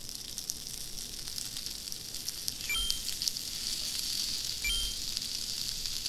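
Slices of Spam and Vienna sausages frying in a cast-iron grill pan over a gas burner: a steady sizzle.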